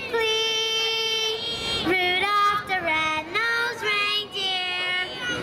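A group of children singing together into microphones, with a woman's voice among them. They hold one long note at the start, then sing shorter notes that step down and back up.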